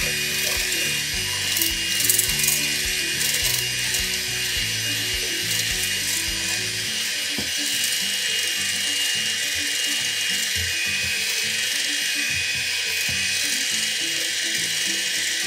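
Electric hand mixer with a whisk attachment running steadily at high speed, whipping cream in a metal bowl; a constant motor whine with the whisk churning the still-liquid cream, which has not yet reached stiff peaks.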